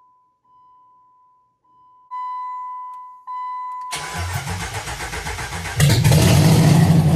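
An electronic dash chime beeps steadily. About four seconds in, the starter cranks the 5.7 Hemi V8 for a couple of seconds, then it fires and runs very loud on open headers with no exhaust before cutting off. This is the engine's first start after the swap; the owner puts the slow catch down to fuel still reaching the fuel rail.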